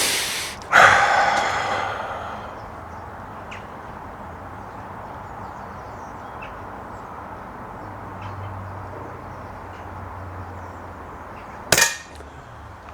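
Two shots from a Snowpeak PP20 .177 pre-charged pneumatic air pistol, about eleven seconds apart. The first is a sharp crack under a second in, followed by a metallic ring that fades over a second or so; the second comes near the end.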